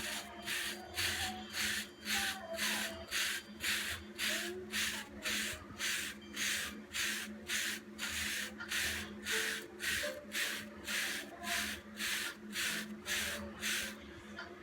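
Hairbrush bristles stroking short hair, brushing 360 waves, in a steady rhythm of about two rasping strokes a second that stop near the end.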